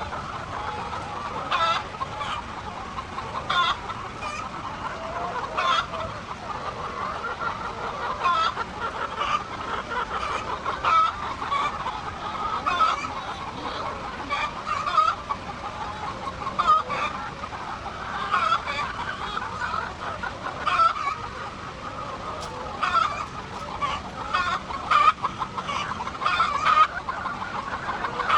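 A flock of laying hens clucking and squawking continuously, with many short calls overlapping.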